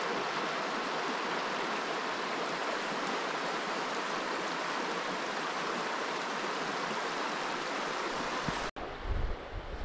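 River rapids rushing steadily over shallow rocks. The rush cuts off suddenly near the end, followed by a few low thumps.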